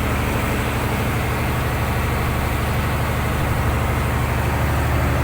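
A fishing boat's engine running steadily: an even low drone with no change in speed.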